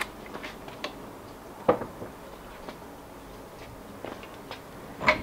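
Light, scattered clicks and ticks from a floor jack being let down as the front of a Mk3 VW Golf settles onto its newly fitted coilovers, with a sharper click a little under two seconds in and another near the end.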